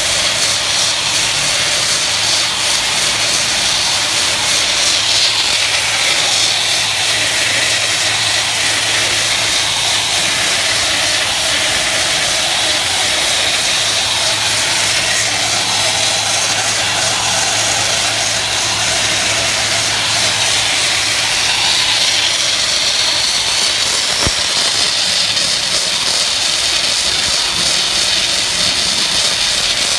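Semi-automatic gum tape slitting and rewinding machine running at speed: a steady, even hiss and whir of clear tape unwinding from the jumbo roll and winding onto the rolls on its two rewind shafts, over a low motor hum.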